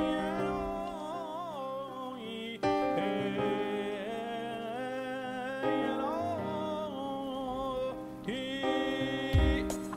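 Music: sustained chords under a wavering, gliding melody line, with low thumps of a beat coming in near the end.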